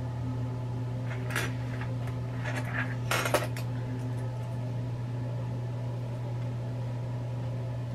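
A few short clicks and rattles of a small plastic hair comb being handled, in the first half, over a steady low hum.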